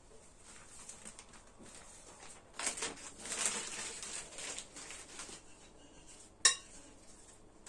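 Household handling sounds: a few seconds of soft rustling and scraping, then a single sharp clink near the end.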